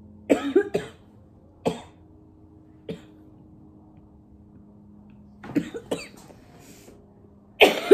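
A woman coughing in short fits while breathing hot eucalyptus-oil steam under a towel: a couple of coughs early on, single ones at about two and three seconds, a cluster about five and a half seconds in, and the loudest fit near the end.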